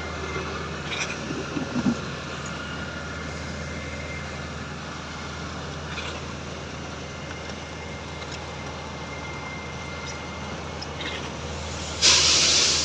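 Concrete pump truck's diesel engine running steadily at a concrete pour, with a few knocks in the first two seconds and a sudden loud hiss near the end.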